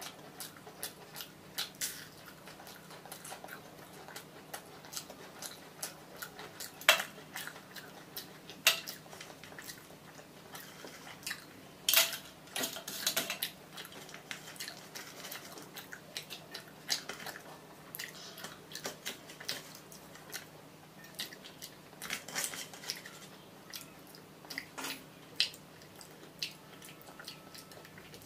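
Close-miked eating sounds from fish and rice eaten by hand: irregular mouth clicks and chewing, with occasional louder clinks of fingers and food against steel plates.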